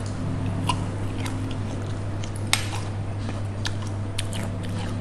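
Close-up chewing of shrimp pad thai with bean sprouts, with small clicks of chopsticks and food against the plate. One sharper click comes about two and a half seconds in.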